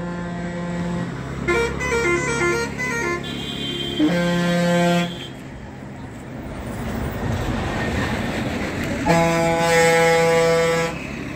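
Road-vehicle horns honking repeatedly in traffic. One is a warbling, multi-note horn about a second and a half in. Two other horns come about four seconds in and near the end, the last held for about two seconds, and a vehicle passes between them.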